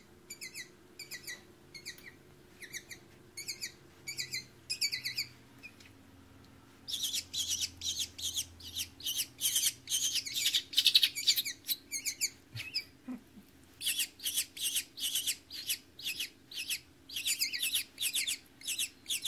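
Downy hawk nestlings giving high-pitched begging cheeps while being hand-fed: short, slightly falling calls repeated over and over, spaced out at first, then faster and louder from about a third of the way in, with a brief pause near two-thirds.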